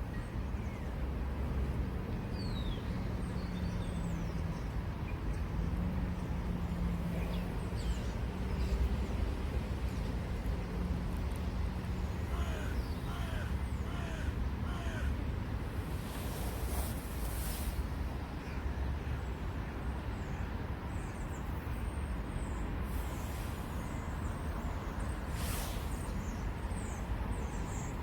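A bird calling about five times in quick succession about halfway through, over a steady low rumble.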